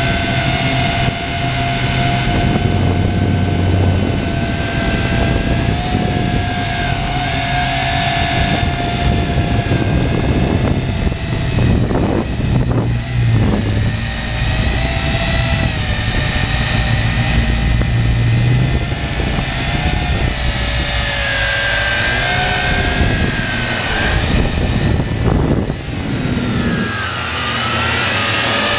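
A camera drone's electric motors and propellers whining steadily, heard close up from the GoPro mounted on it. The whine is several pitches at once that waver up and down now and then, over a low rumble.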